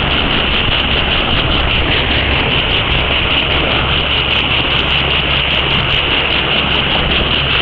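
Tour boat's engine running steadily under way, a constant low hum, with wash and wind noise over it.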